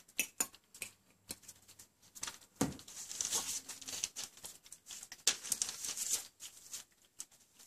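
Four-week-old wire-haired miniature dachshund puppies eating raw minced meat from a plate: a run of quick wet smacks and clicks, with newspaper crinkling under their paws in two longer stretches.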